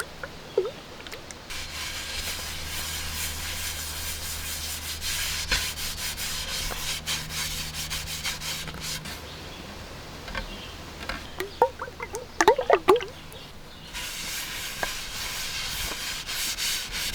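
Hand rubbing over the wooden blade of a canoe paddle during refinishing: a steady rasping hiss that stops about ten seconds in and starts again near the end. A few short chirps come in the quieter gap.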